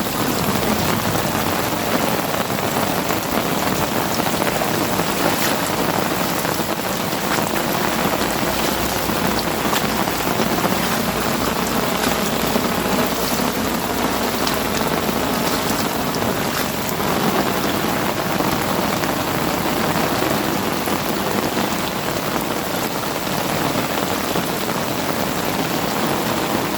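Heavy rain falling steadily, a dense patter with scattered sharper drop hits.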